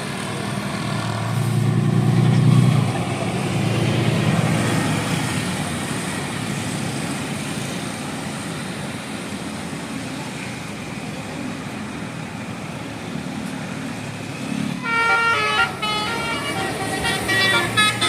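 A bus engine labouring up a steep incline, loudest about two seconds in. Near the end, the bus's multi-tone 'telolet' musical horn sounds a quick tune of stepped notes.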